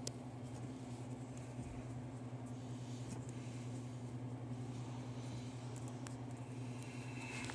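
Steady low electrical hum with a few short, light clicks and taps of parts being handled during reassembly of a prize-wheel motor assembly.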